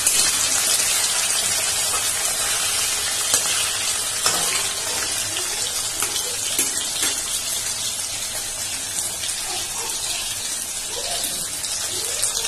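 Cubes of soft homemade paneer sizzling steadily in hot refined oil in a kadai, with a few sharp crackles and pops standing out.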